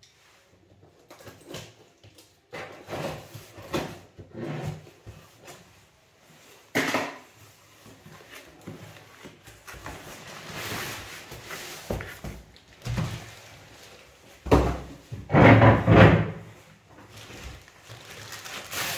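A cardboard shipping box being opened by hand: packing tape peeled and torn off in short rips, the flaps pulled open, then the wrapped backpack dragged out of the box, the loudest and fullest scraping rustle about fifteen seconds in.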